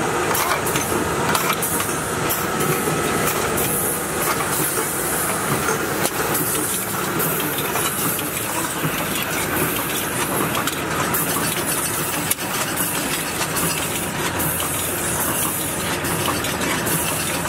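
Rotary isobaric can filling machine running: a steady mechanical clatter of aluminium cans moving through the star wheels, with a continuous hiss.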